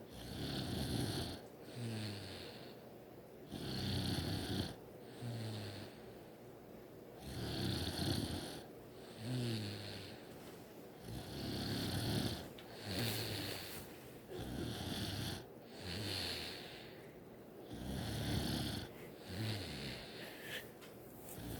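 A person snoring in a steady rhythm, about six rough, rattling snores roughly four seconds apart, each followed by a short sound that falls in pitch.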